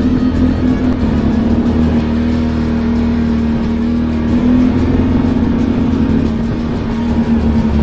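Can-Am ATV engine running at a steady trail-riding speed: a continuous drone with a low rumble, its pitch wavering slightly as the throttle varies.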